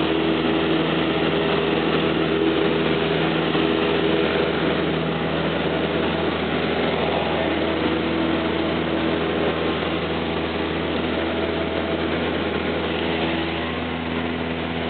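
Cessna 172's four-cylinder Lycoming O-320 engine and propeller running steadily in flight, heard from inside the cabin with a constant hiss of air noise over it.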